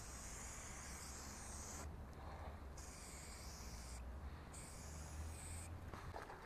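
Aerosol spray-paint can hissing in three bursts: one running from the start and breaking off about two seconds in, then two more of about a second each, the last stopping shortly before the end. A low steady rumble lies beneath.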